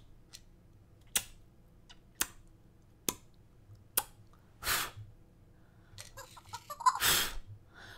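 Kisses blown at a Fingerlings baby monkey toy: sharp lip-smack clicks about once a second, then two short hissing puffs of breath, one around the middle and one near the end.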